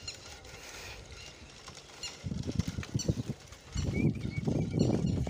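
Bicycle ride over a brick road with wind buffeting the phone's microphone in loud, ragged gusts from about two seconds in, over a steady rattling hiss. A few short high chirps sound in the first second.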